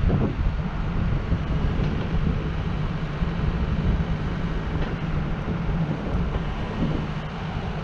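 Yanmar SV100-2A mini excavator's diesel engine running steadily with a low hum.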